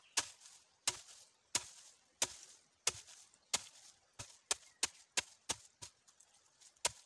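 Long wooden pestle pounding dried coffee cherries in a wooden mortar: a run of sharp knocks, about one every two-thirds of a second, quickening to about three a second midway. The husks are not yet crisp enough to crumble; the pounder says the beans need more sun-drying before they can be husked.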